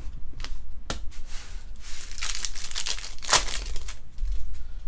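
Plastic wrapper of a 2020 Topps Pro Debut baseball card pack being torn open and crinkled: a couple of sharp crackles, then a stretch of continuous crinkling that is loudest about three seconds in and dies away near the end.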